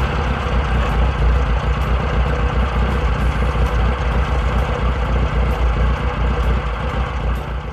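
Motor vehicle engine idling with a steady low rumble, fading down near the end.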